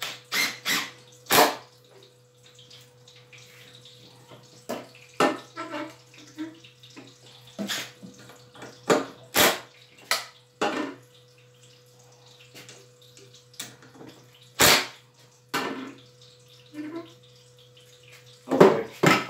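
Irregular sharp clicks and knocks, a dozen or so spread out with gaps of a second or more, as of handling tools and screws. There is a steady low hum under them.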